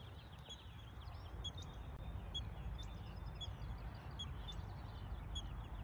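A small bird chirping, short high calls repeating about once a second, with a few quicker twitters in the first second, over a steady low rumble.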